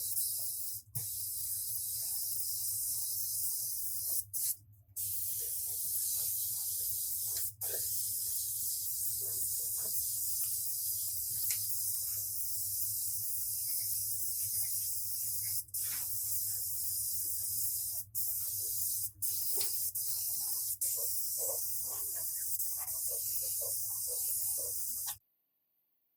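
Compressed-air paint spray gun spraying with a steady hiss over a low hum, broken by several brief gaps, and cutting off suddenly about 25 seconds in.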